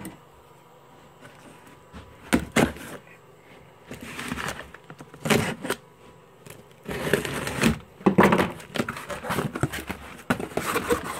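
A cardboard box being cut open with a knife: the blade slitting the packing tape and the flaps being pulled up, a string of sharp rips and cardboard scrapes starting about two seconds in.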